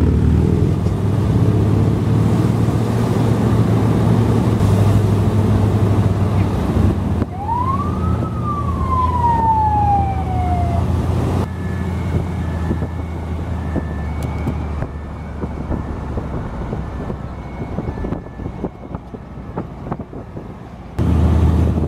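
Car engine running steadily as the car drives along, heard from the bonnet. About seven seconds in, a siren-like wail rises quickly and then falls slowly. After that the engine is quieter, with faint short high beeps repeating about once a second.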